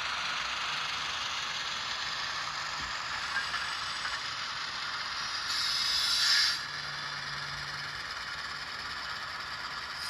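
HO-scale Rapido 44-tonner model locomotive running: its sound decoder plays the twin diesel prime movers through the speaker over the whir of the model's motor and gears. A short louder hiss comes about five and a half seconds in.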